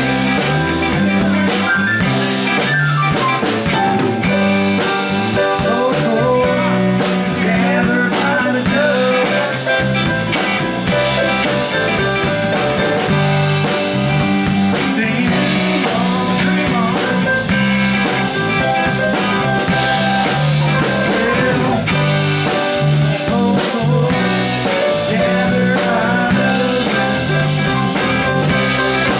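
Live rock band playing an instrumental passage: electric guitars, Hammond organ and drum kit over a steady bass line.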